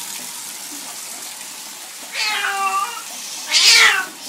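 Domestic cat yowling twice in distress at being bathed: a drawn-out meow about two seconds in, then a louder, rougher one a second later, over the steady hiss of running bath water.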